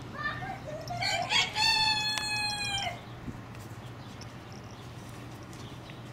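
A rooster crowing once, about a second in: a rising start, then a long held note that cuts off about three seconds in.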